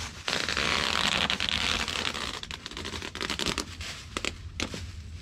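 Duct tape pulled off the roll in one long rip lasting about two seconds, followed by shorter crackles and tearing as the tape is wound around a tree trunk.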